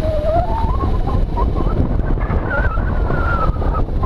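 Motorcycle riding over a rough dirt track: steady engine rumble with wind buffeting the microphone and knocks and rattles from the bumps. A wavering whistle-like tone climbs slowly in pitch through the ride.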